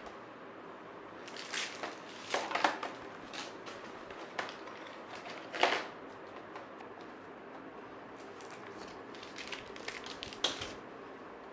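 Irregular short rustles and crunches of things being handled, in a few clusters, over a faint steady background hum.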